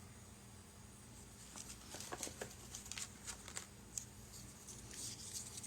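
Faint, scattered clicks and light taps of small plastic and resin model-kit parts being handled and fitted, over quiet room tone.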